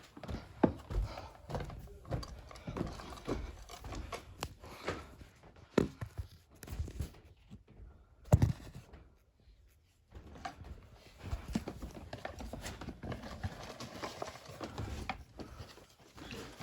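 Handling noise from a smoke alarm's plastic casing being picked up and turned over: irregular clicks and knocks, with about a second of near quiet around the middle. The alarm is not sounding.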